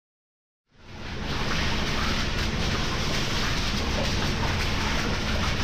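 Silence, then about a second in the steady din of a recycling plant's container line fades in: conveyors and sorting machinery running, with a constant low hum underneath.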